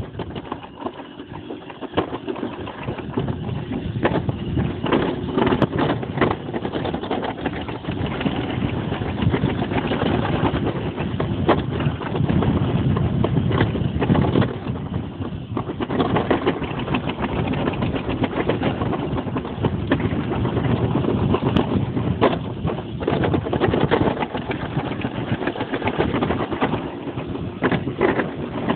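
Summer bobsled sliding and rattling down a stainless-steel trough track: a continuous rumble with frequent knocks and clatters as the sled runs along the metal.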